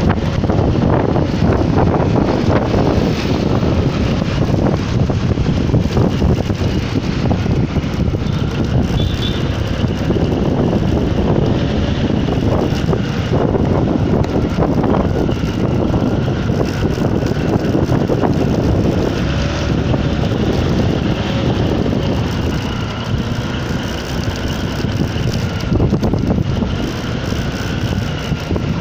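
Wind rushing over the microphone and road noise from a vehicle moving along a city street in traffic, steady and loud throughout, with a faint whine that rises and falls.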